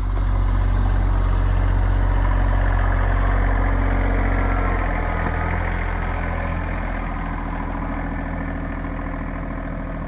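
RK25 compact tractor's diesel engine running steadily close by, a little quieter from about halfway through as the tractor pulls away.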